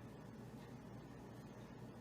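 Near silence: faint steady room hum and hiss.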